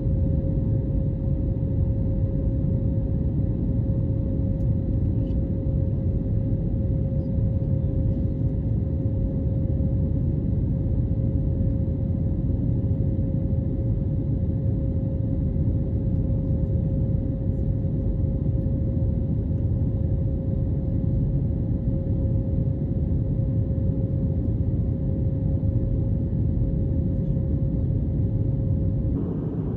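Steady low roar of a jet airliner's cabin in cruise, with a constant hum-like tone above it that stops near the end.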